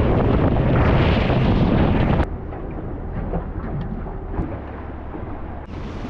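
Wind buffeting the microphone, a loud rumble that cuts off suddenly about two seconds in. Quieter steady wind noise follows.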